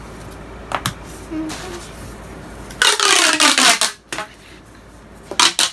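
A stretchy plastic toy tube being pulled out, giving a loud zipping whirr that falls in pitch for about a second; sharp clicks before and after as pieces are handled and snapped together.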